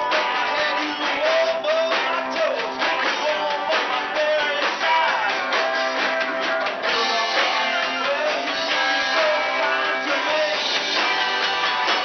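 Live rock band playing: electric guitars strummed over a steady drum beat, with a lead singer on the microphone.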